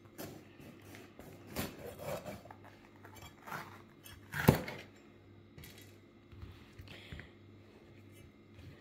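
Chef's knife cutting bell peppers on a wooden cutting board: scattered knocks of the blade on the board, the loudest about four and a half seconds in.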